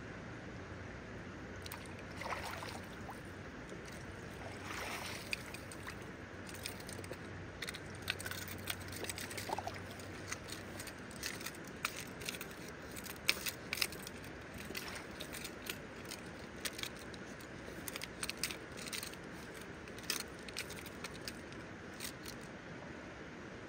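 Shallow river flowing steadily, with many scattered sharp little clicks over it, thickest from about seven seconds in.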